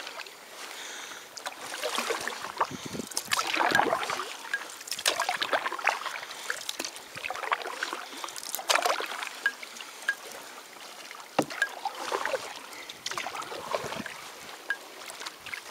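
Water splashing and trickling around a paddled canoe, swelling with each paddle stroke every second or two, with a few sharp knocks and small drips.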